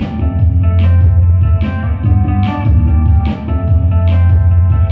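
Live music with electric guitar over a deep, steady bass, with an accented beat a little more than once a second and no singing.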